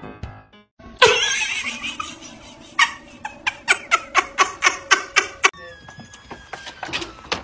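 A loud sudden burst of noise about a second in, then a person laughing in quick, evenly spaced bursts, about three a second. A faint high whine slides down near the end.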